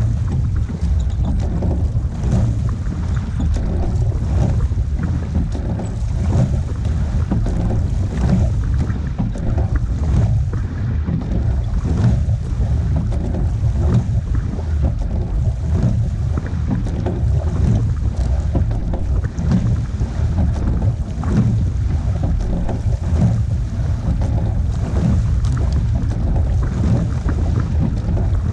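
Wind buffeting the microphone on the bow of a rowing pair shell, over water rushing along the hull and the recurring splash of the oars as the crew rows.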